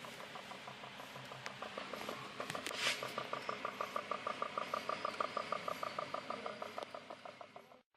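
Homemade pop-pop steam boat running, its little boiler making a fast, even train of quick pops, roughly eight to ten a second. There is a short hiss about three seconds in, and the sound cuts off suddenly near the end.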